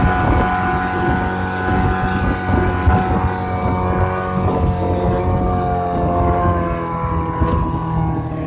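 Mercury 15 hp two-stroke short-shaft outboard motor running steadily at speed, its engine note dropping slightly in pitch around the middle, over a rush of wind and water.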